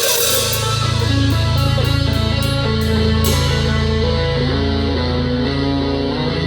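Live progressive rock played on Chapman Stick and touch guitar: sustained low bass notes under a stepping melodic line. Cymbal strokes come about three a second for the first three seconds, then drop out, leaving the strings.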